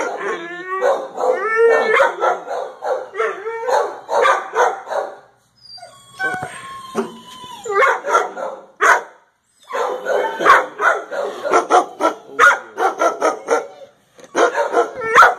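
Shelter dogs barking in their kennels, several at once and overlapping, with a few short cries gliding in pitch about a second in. The barking drops out briefly three times.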